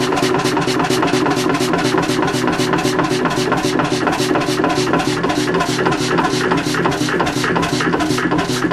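1937 Beijer 25 HP horizontal hot bulb engine running steadily, its exhaust beating in a fast, even rhythm.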